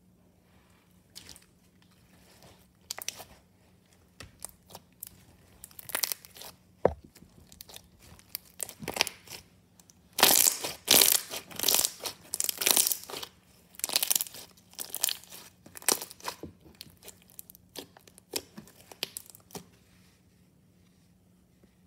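Glossy, sticky slime being pressed, poked and pulled by hand, giving irregular crackling pops and clicks. The crackles start faint and come thickest about halfway through.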